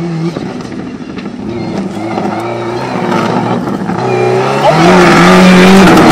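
Subaru Impreza rally car's turbocharged flat-four engine revving hard as the car slides through a dirt corner and comes closer. The engine grows steadily louder and is loudest as it passes close about five seconds in.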